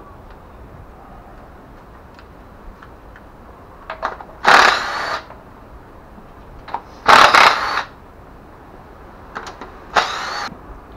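Cordless impact tool spinning bolts out of the top of a Ford 289 small-block V8, three short bursts about three seconds apart, each with a rising motor whine. A few small metal clicks fall between the bursts.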